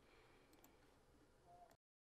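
Near silence: a faint background hiss that cuts to complete silence near the end.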